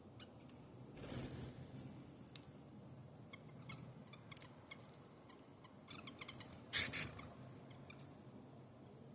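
Small birds at a feeder: a quick run of about four high, thin chirps about a second in, then a brief loud scratchy burst near the seven-second mark, with scattered faint ticks between.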